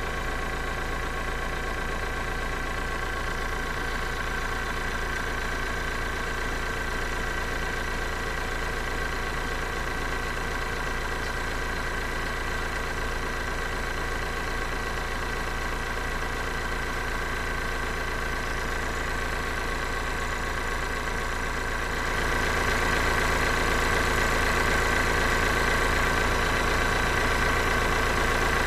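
Electric air compressor running on continuously with a steady motor hum, the sign of its fault: it never shuts off even after reaching its set pressure. The sound steps up louder a few seconds before the end.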